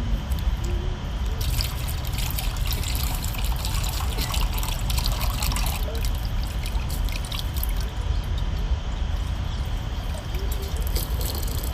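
Water trickling and splashing with fine wet crackles, as tamarind water is made for pani puri, over a steady low rumble.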